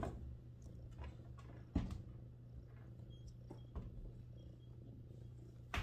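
A Sphynx mother cat purring steadily while her newborn kittens nurse, with soft rustling and small clicks from the kittens squirming against her. A couple of sharper clicks stand out, one about two seconds in and one at the end.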